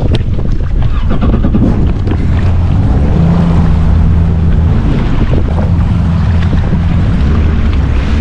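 Yamaha jet ski engine running under throttle while it is driven along with a hooked fish, a steady low hum that comes in about three seconds in. Wind buffets the microphone and water rushes and splashes against the hull throughout.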